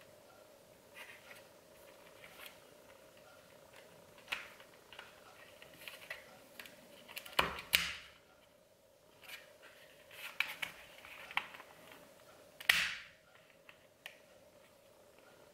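Hard plastic parts of a Bell Broozer helmet's removable chin bar being handled: scattered light clicks, taps and rubbing, with two louder sharp clicks about seven and a half seconds in and just before the thirteen-second mark as the latch is worked.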